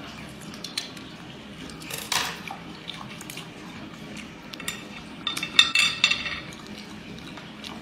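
Chopsticks clicking and tapping against a ceramic plate while cooked octopus in chili sauce is chewed and pulled apart by hand, with wet, sticky sounds. A quick cluster of sharp clicks about five and a half seconds in is the loudest part.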